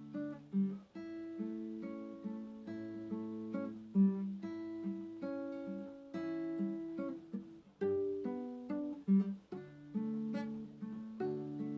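Acoustic guitar (violão) playing slow, calm music, single notes and chords plucked and left to ring.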